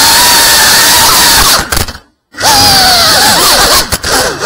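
FPV racing quadcopter's brushless motors whining loudly, the pitch rising and falling as the throttle changes. About halfway through, the sound fades and cuts out completely for a moment, then comes back with quick swoops in pitch.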